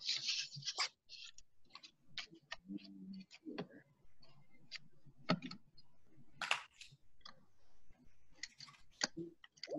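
Irregular small clicks and taps from handling paper plate pieces and a small, jam-prone stapler, with a brief papery rustle at the start.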